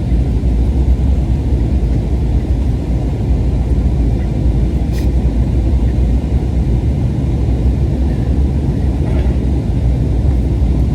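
Steady rumble of a passenger jet's engines and airflow heard inside the cabin during the climb after takeoff, with a faint click about five seconds in.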